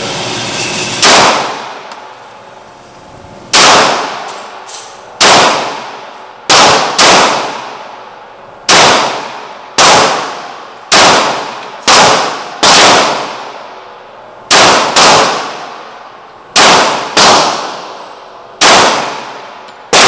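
Glock 30 .45 ACP pistol fired about sixteen times at an uneven pace, often in quick pairs, each shot ringing out with a tail of echo.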